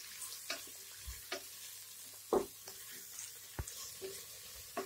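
Sliced onions frying in oil in a nonstick pot while a spatula stirs them: a faint sizzle with scattered taps and scrapes of the spatula against the pot, the loudest a little over two seconds in.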